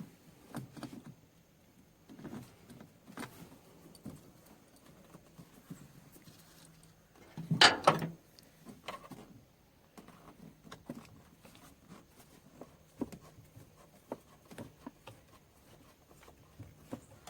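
Scattered clicks and clinks of hand work on rubber hoses and metal hose clamps, with one louder clatter about halfway through.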